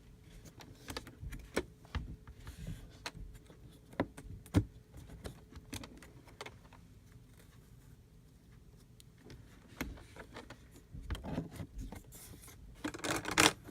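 Small pieces being handled and pressed into a storage case around a model kit: scattered light clicks and knocks, with a short stretch of dense rustling and scraping near the end.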